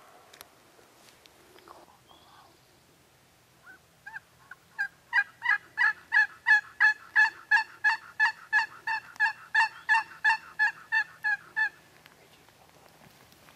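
Turkey call run as a long series of hen yelps: evenly spaced notes, about three a second, starting softly about four seconds in and stopping near the end.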